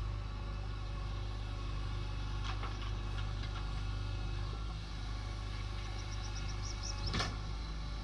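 Heavy diesel engine running steadily at a low, even speed. A few short knocks come about two and a half seconds in and again near the end, with a quick run of faint high chirps just before the last knock.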